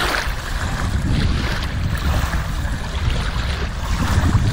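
Wind buffeting the microphone in a loud, uneven rumble, with small waves lapping in shallow water.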